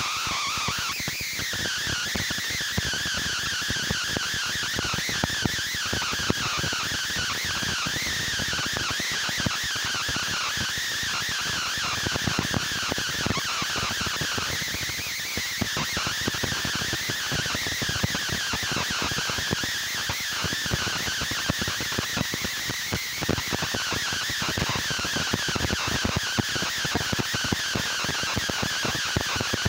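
Dense, steady night chorus of many overlapping high, wavering calls from frogs and insects.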